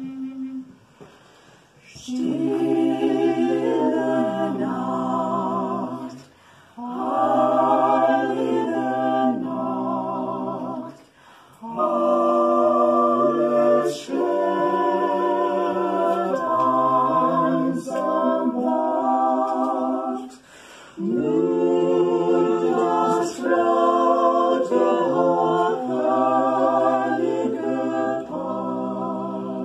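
Small mixed ensemble of women's and men's voices singing a cappella in harmony, in four phrases with short breaths between them. A recorder's held note ends about half a second in, before the voices start.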